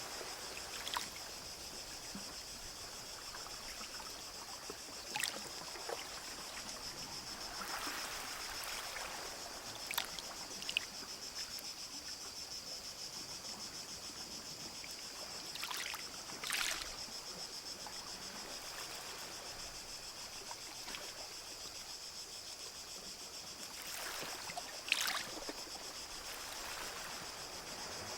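Small waves lapping and splashing gently at the shore every few seconds, over a steady high-pitched drone of insects.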